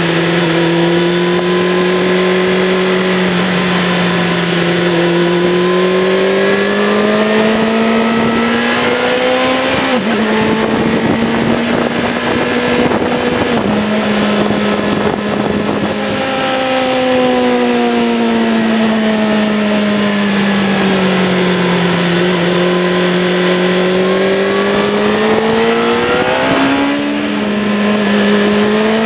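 Suzuki GSX-R 750 SRAD's inline-four engine running under way, over a rush of wind. Its pitch slowly rises and falls with the throttle, with a short jump up and back down near the end.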